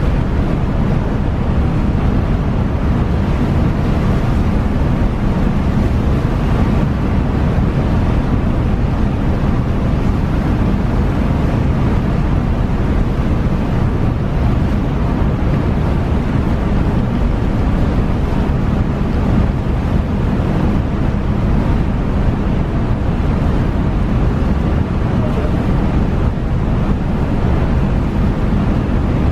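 Steady wind noise on the microphone at a ferry's deck rail, over the low, even rumble of the ship under way.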